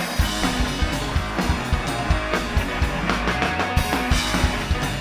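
Live rock band playing an instrumental passage: drum kit beating out a steady rhythm with bass drum and cymbals under electric guitar.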